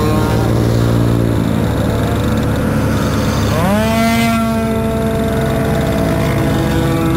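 Moped engines running in a pack, heard from onboard one of the mopeds. The engine note drops about a second and a half in, then climbs quickly a couple of seconds later and settles into a steady higher drone.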